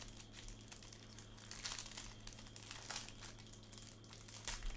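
Clear plastic wrapper of a trading-card pack crinkling and tearing as hands rip it open and peel it off the stack of cards, in faint, irregular crackles.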